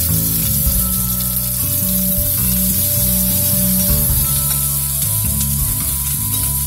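Chopped onions and cashew pieces sizzling in sesame oil in a frying pan as they are stirred with a steel spatula, with background music playing.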